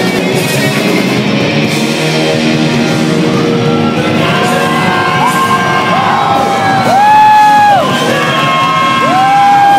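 Rock band playing live, guitars and drums filling the sound. From about halfway in, long held high notes slide up into and down out of each pitch, typical of the song's closing stretch.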